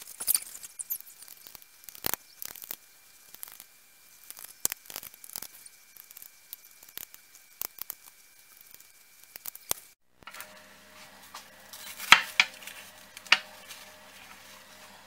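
A knife scoring through layered, buttered filo pastry in a glass baking dish gives a run of crisp crackles, ticks and light taps. About ten seconds in, a low steady hum comes in, with two sharp knocks a little later.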